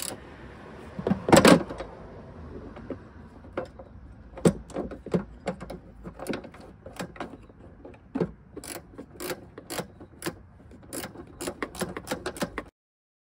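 Hand ratchet wrench clicking in short spurts as it turns a bolt on a new hood hinge, with a louder metallic knock about a second in. The sound cuts off abruptly near the end.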